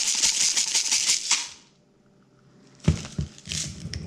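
Himalayan pink salt grinder being twisted, a fast dry crunching rattle that stops about a second and a half in. Near the end there is a sharp knock, the loudest sound, and then softer rustling and handling noises.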